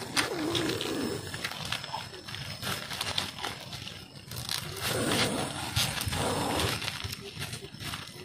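Large cobra hissing in long, forceful breaths, twice: once right at the start and again about five seconds in, a defensive hiss from the snake as it is coaxed out of the bag. Light crinkling of the plastic bag between the hisses.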